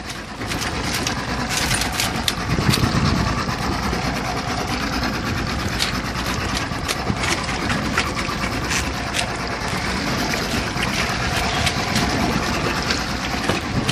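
Mercury outboard motor idling steadily, with frequent small sharp clicks and taps over it.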